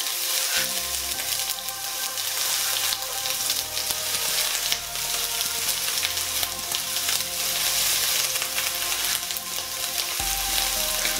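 Red bell pepper strips and broccoli florets sizzling as they fry in olive oil in a nonstick pan: a steady crackling hiss.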